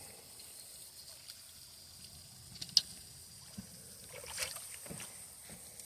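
Low outdoor background with one sharp click almost three seconds in, then a few soft knocks and short rustling noises around four to five seconds in.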